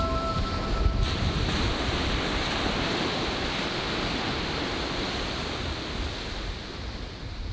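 Surf washing onto a sandy beach in a steady rush, with wind rumbling on the microphone. The tail of a musical tune fades out in the first second.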